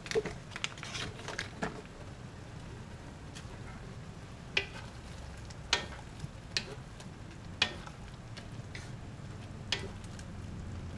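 Pancit canton noodles being stirred and tossed in an aluminium wok over a low, steady sizzle, with a utensil knocking sharply against the pan every second or so.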